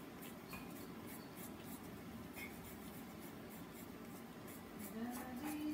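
Pen scratching on paper in short, repeated drawing strokes. Near the end a voice starts humming a held note.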